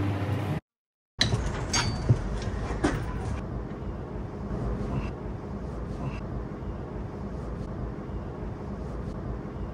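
Brass faucet valve parts being handled on a workbench: a quick run of sharp metal clicks and taps just after a brief half-second dropout, then a few faint ticks over a steady low background rumble.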